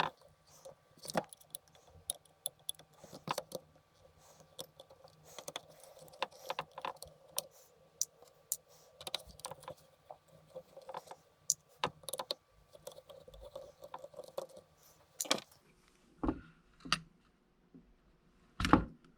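Small clicks and taps from a precision screwdriver and tweezers working screws out of a DJI Mavic Air 2 drone's plastic body, with a few heavier knocks of parts or tools set down on the bench near the end.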